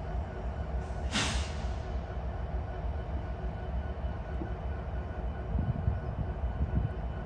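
Parked diesel locomotives idling with a steady low rumble and hum. About a second in there is a short hiss of air, lasting under a second.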